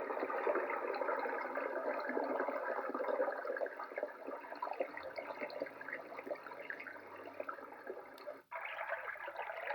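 Sound machine playing a recorded rushing-water sound through its small speaker, thin and without bass. It cuts out for an instant about eight and a half seconds in as the next track starts, another flowing-water sound like a river.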